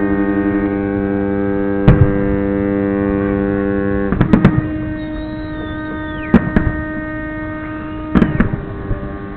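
Several ships' horns sounding together in a steady, many-toned chord that shifts a few times. Fireworks burst over it with sharp bangs every couple of seconds, some in quick pairs, and there is a thin whistle about halfway through.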